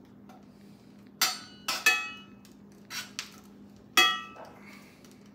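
Metal spatula clinking against a cast iron skillet while pushing butter around the pan: about six sharp, briefly ringing clinks, the loudest about four seconds in. A steady low hum runs underneath.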